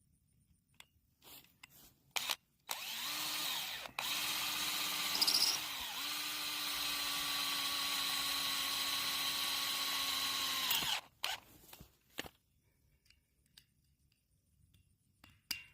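Power drill driving a reused self-drilling screw with a metal-cutting tip, running in three pulls of the trigger with the motor pitch sagging as the screw bites, the last pull running steadily for about five seconds. Light clicks and taps from handling come before and after.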